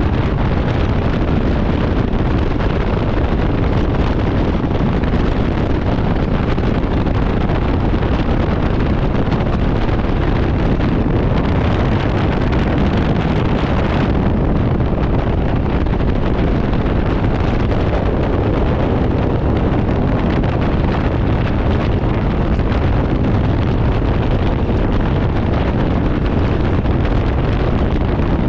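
Steady wind rush on the microphone of a Can-Am Ryker 900 three-wheeler riding at speed, with engine and road noise beneath it. A stretch of extra hiss stops sharply about fourteen seconds in.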